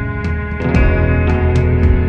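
Instrumental post-rock music: sustained electric guitar chords over drums, with sharp hits every half second or so.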